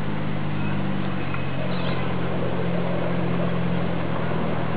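Miniature railway train with a yellow diesel-outline locomotive approaching: a steady low motor hum under a rushing wheel-and-rail noise that grows louder near the end as the train comes closer.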